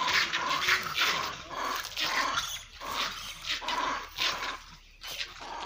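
Monkeys fighting, giving harsh, noisy cries about twice a second, with a short lull near the end.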